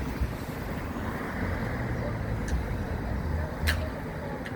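Steady low rumble of road traffic and vehicle engines, with three short sharp clicks.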